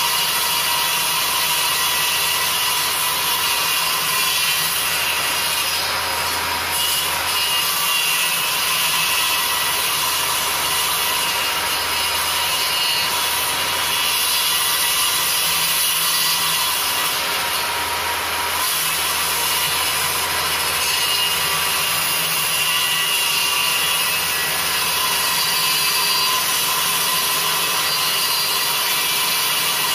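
Table saw running steadily while its blade shaves a cork-ring fishing-rod handle blank that is turned on a metal rod in a jig over it, a continuous cutting noise with the motor's steady hum underneath.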